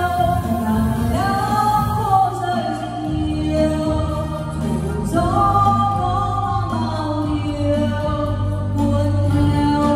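Music with singing: long held vocal notes that glide between pitches, over a steady low bass line.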